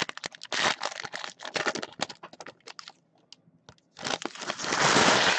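Trading card pack wrappers crinkling and being torn open by hand: a run of sharp crackles, then a louder, longer rip near the end.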